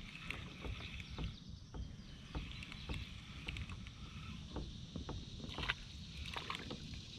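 Light, irregular clicks and knocks in a plastic kayak as a spinning reel is cranked in with a rock bass on the line, over a faint steady hiss.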